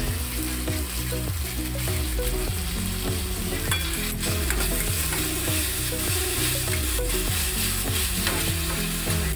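Chopped onion with tomato ketchup sizzling in hot oil in a pan as it is stirred, a steady frying hiss with a few sharp clicks.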